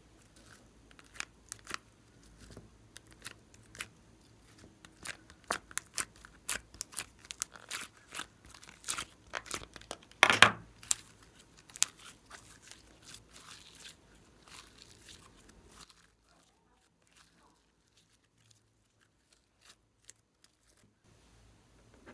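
Slime being squished and folded by hand among foam beads, making a quick run of sharp pops, clicks and crackles as air pockets burst. The loudest is one longer crackle about ten seconds in. The sound stops about 16 seconds in, and only a few faint ticks follow.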